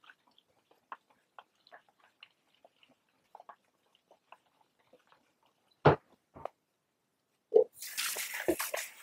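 Fixer sloshing inside a Paterson plastic developing tank as it is inverted and turned during agitation, heard as soft, irregular splashy clicks. About six seconds in come a couple of loud knocks, then another knock and a second or so of rushing noise near the end.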